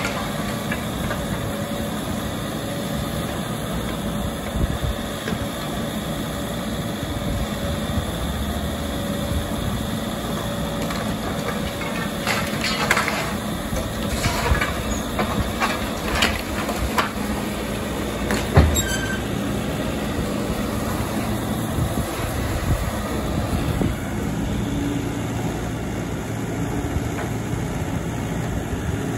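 Sumitomo excavator's diesel engine and hydraulics running steadily under load while its five-finger grapple tears down brick walls and roof timbers. Scattered crashes and scrapes of falling bricks and timber come through, the loudest a single heavy thud about two-thirds of the way in.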